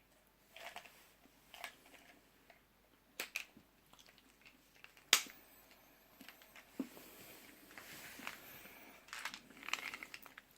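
A person chewing and crunching a snack, with scattered faint crunches and a sharp click about five seconds in.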